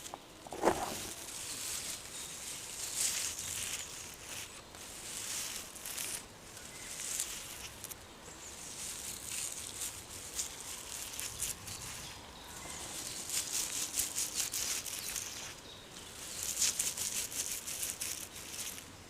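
Dry leaves rustling and crackling, coming in waves, with bursts of fast crackles about two-thirds of the way through and again near the end.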